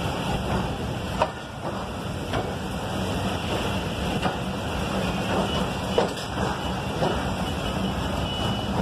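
Train running slowly, heard from an open coach doorway: a steady rumble with occasional sharp knocks and clatters.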